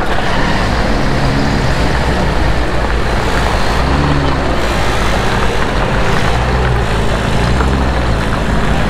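Vintage flat-fender Willys Jeep's four-cylinder engine running at low speed as the open jeep rolls slowly over gravel, a steady low rumble whose pitch swells and eases a little, with road and wind noise.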